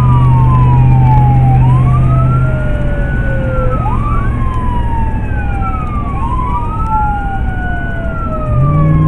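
Emergency vehicle's electronic siren on wail: each cycle rises quickly, then glides slowly down over several seconds, with the sweeps overlapping one another. A low steady drone runs beneath and changes pitch near the end.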